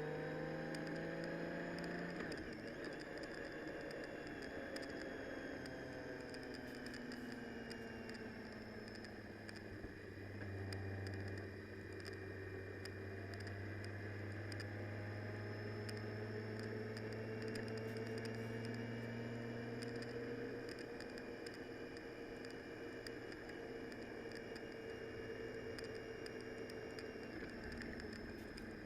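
Vehicle driving in rain: a steady engine and road drone whose pitch slowly rises and falls with speed, with many small taps of rain hitting the vehicle throughout.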